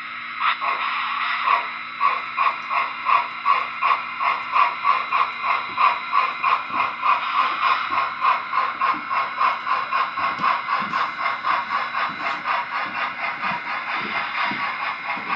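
O scale model geared steam logging locomotive chuffing as it pulls loaded log cars away. The steam-exhaust chuffs quicken from about two to about five a second as it picks up speed, over a steady hum.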